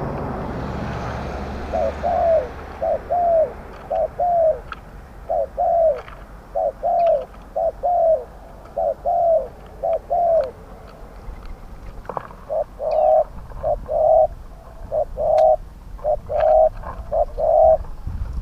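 Spotted doves cooing: a long series of short, falling coo notes, paired and evenly spaced, that pauses about ten seconds in and then resumes in a denser run. A rustling hiss covers the first two seconds.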